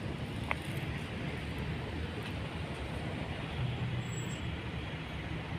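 Steady low hum of road traffic and vehicle engines, with a brief high chirp about half a second in.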